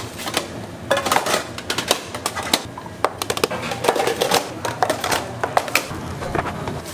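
Rapid, irregular clicks and knocks of kitchen utensils at work.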